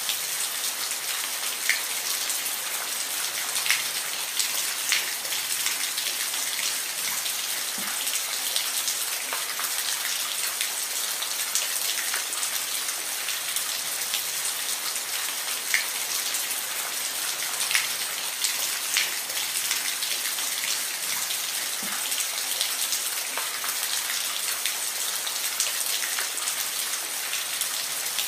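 Steady rain falling, a dense even hiss with individual drops ticking against a surface every second or so.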